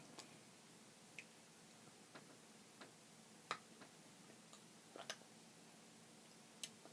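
Near silence: faint room tone with about seven small, scattered clicks, one every second or so, none of them loud.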